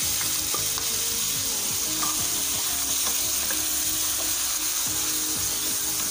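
Diced potatoes sizzling in hot oil in a frying pan, a steady hiss, while a spatula stirs them with small scrapes and taps against the pan.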